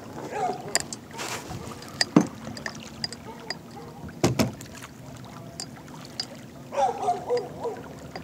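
Electric trolling motor running with a steady low hum as it pushes the kayak along, with a few sharp knocks, the loudest about two and about four seconds in.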